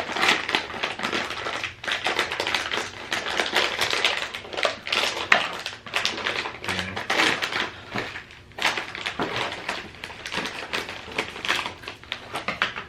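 Crinkly potato chip bag rustling and crackling as it is torn open and handled, in quick irregular crackles.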